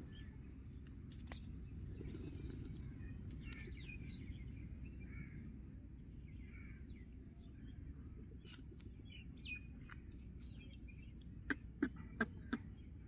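Small birds chirping faintly in the background over a steady low outdoor rumble, with a quick run of four sharp clicks near the end.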